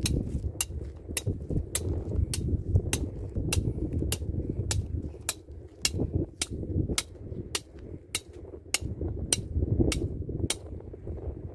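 Regular mechanical clicking at an even pace of about three clicks every two seconds, stopping about ten and a half seconds in, over a steady low rumble.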